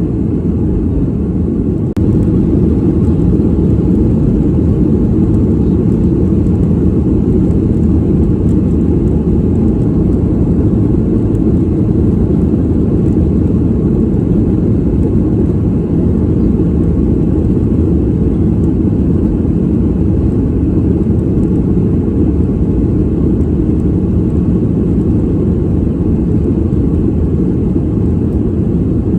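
Passenger-cabin noise of an airliner in flight: a steady, deep rushing drone. The level steps up slightly about two seconds in.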